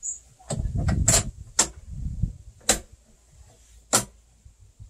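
Sharp clicks and knocks, about six in the first four seconds, over low thuds, as the handlebar parts of a Snapper walk-behind mower are fitted together by hand; the mower's engine is not running.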